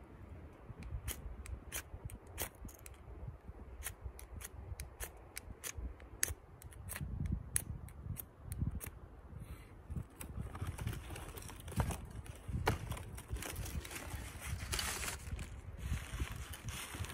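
A flint-rod fire starter being worked at a pile of tinder: a run of sharp clicks as it is handled, then repeated scrapes of the striker along the rod, the loudest a little before the end.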